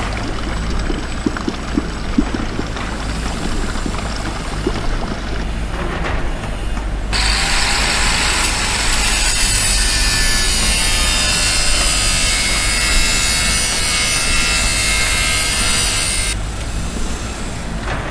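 Concrete pump truck engine running steadily while wet concrete flows from the hose. After a few seconds this gives way to an angle grinder cutting a steel stud, a dense high whine that lasts about nine seconds.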